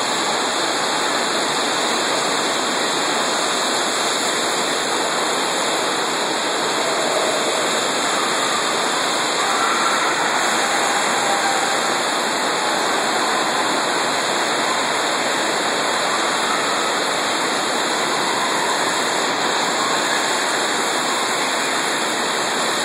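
Heavy thunderstorm rain beating on the atrium roof, a steady, deafening noise.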